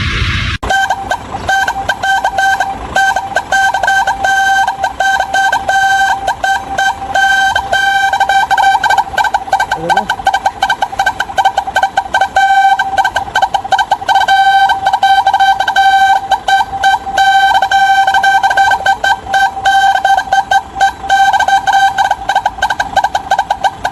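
Custom truck horn sounding a loud, steady high note with a fast warbling flutter over it. A different horn cuts off about half a second in, just before it starts.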